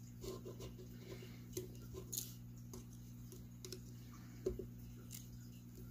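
Small screwdriver turning out tiny screws from a microphone's plastic body, giving faint scattered clicks and ticks of the tip working in the screw heads. A steady low hum runs underneath.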